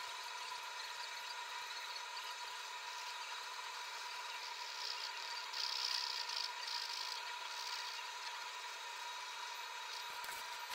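Pencil scratching across sketchbook paper in quick shading strokes, loudest about halfway through, over a steady faint hiss and a thin constant tone.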